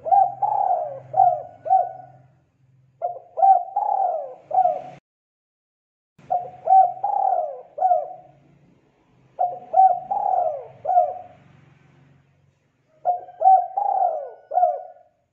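Spotted dove cooing: five phrases, each a quick run of several coos, repeated about every three seconds.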